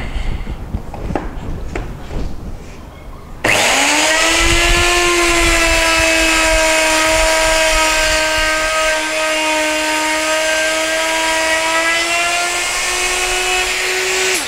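Handling knocks and clicks, then about three and a half seconds in an electric router starts abruptly with a high, steady whine, its pitch rising briefly before settling as it runs along a wooden board cutting a decorative bead line. The whine cuts off suddenly at the end.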